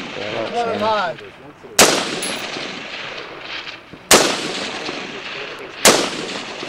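Rifle fired from the prone position at long-range targets: three shots about two seconds apart, each followed by a long echo fading off the surrounding hills.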